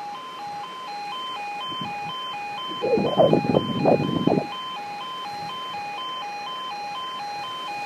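Level crossing warning alarm sounding: a two-tone electronic warble that alternates steadily about twice a second. About three seconds in, a louder, uneven sound cuts across it for about a second and a half.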